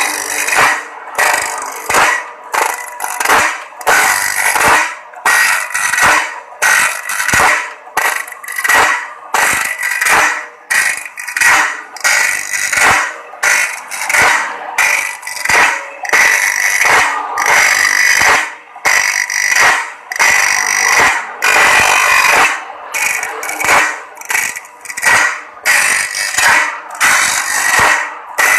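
Bench-grinder abrasive wheel on an automatic band-saw-blade sharpener grinding a sawmill band saw blade tooth after tooth: a rhythmic grinding rasp about twice a second over a steady high whine, as the feed mechanism steps the blade on one tooth per stroke.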